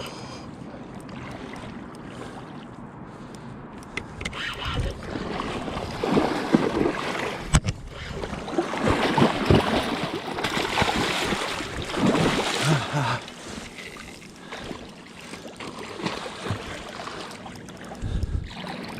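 River water splashing and rushing while a hooked steelhead is played on a spinning rod. The splashing surges loudly and unevenly for several seconds in the middle, with one sharp click.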